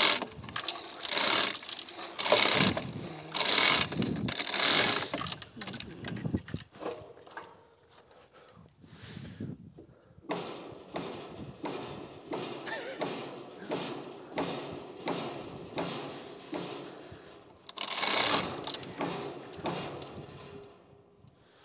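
Hand-operated hoist on a wooden gantry crane ratcheting and its chain rattling as it is worked to lift a trailer frame: a run of loud strokes about a second apart, then fainter, quicker clicking, with one more loud burst near the end.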